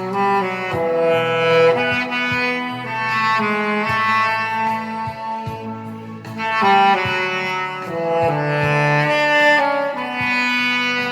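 Saxophone playing a slow, sustained melody over a backing track with held low accompanying notes.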